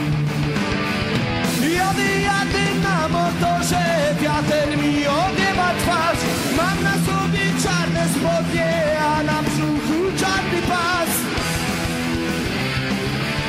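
Rock music: steady guitar chords with a wavering, bending lead melody line over them.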